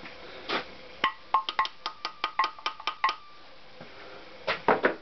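A quick run of about a dozen light metallic clicks, roughly six a second, each with a brief ringing note, then a short cluster of clicks near the end. It is metal tool-and-part work on a bare Honda CX500 engine crankcase.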